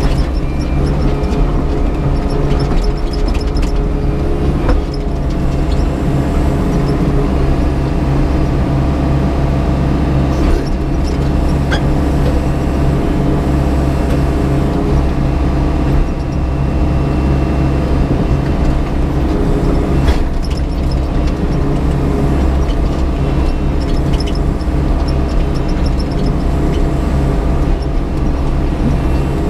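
Yanmar crawler excavator's diesel engine running steadily under work, with a few faint knocks.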